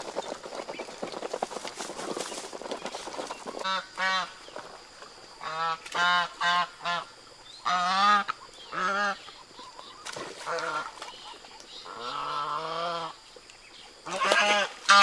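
Domestic ducks calling, a run of about a dozen loud, honking quacks, one of them long and drawn out near the end. Before the calls start, a few seconds of busy rustling and clicking.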